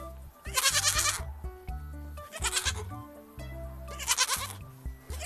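A goat bleating three times, each bleat about half a second long and wavering, with another starting at the end, over light background music.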